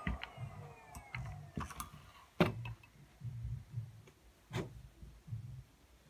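Miele canister vacuum cleaner winding down after being switched off, its motor's falling whine fading over the first two seconds. Scattered knocks and clicks follow, the loudest about two and a half seconds in and another near the end, as the metal wand and hose are handled and laid on the carpet.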